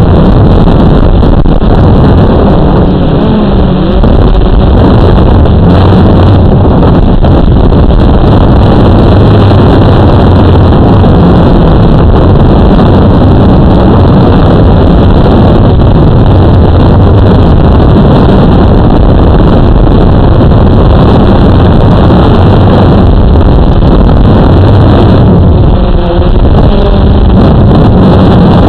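Electric motors and propellers of a small radio-controlled drone heard from the camera riding on it: a loud, steady whirring hum with wind rushing over the microphone, so loud that it distorts.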